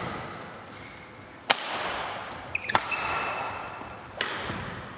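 Badminton rackets striking a shuttlecock during a doubles rally: three sharp hits, each about a second and a half after the last, the first the loudest, each ringing on in a large hall. Shoes squeak briefly on the court floor between the first and second hits.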